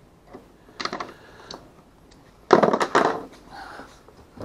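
Hard plastic and metal kayak mounting parts being handled: a few light clicks about a second in, then a louder clatter of knocks lasting most of a second about two and a half seconds in.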